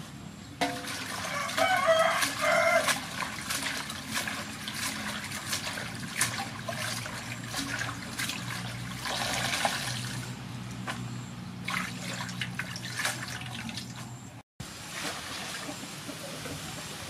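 Water splashing, trickling and dripping as leafy greens are swished and lifted out of a large aluminium basin of water by hand, in irregular small splashes. A chicken calls loudly for the first few seconds.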